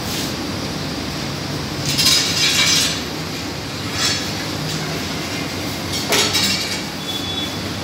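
Long metal bread peels scraping and clinking against the hot pebble bed of a Sangak bread oven, three times about two seconds apart, the first a drawn-out scrape of about a second. Under it a steady rumble, typical of the oven's burner.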